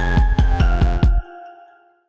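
Electronic background music with a heavy beat of deep drum hits. It stops just over a second in, and its last held notes fade out to near silence.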